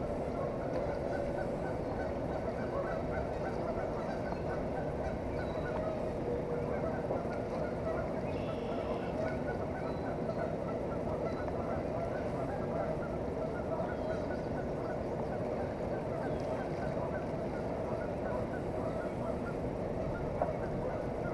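Steady rush of the fast-flowing river along the bank, with a continuous chatter of honking calls over it.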